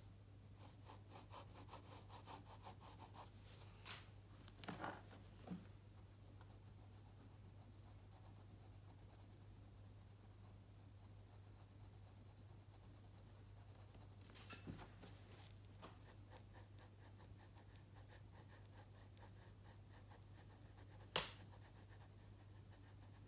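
Faint scratching of a pencil shading on sketch paper, over a steady low hum. A few soft clicks or knocks come through, the sharpest one near the end.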